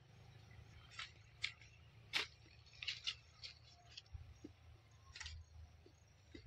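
Faint shutter clicks of a DSLR camera taking a run of photos: about seven short, sharp clicks at uneven spacing, some in close pairs, the loudest about two seconds in.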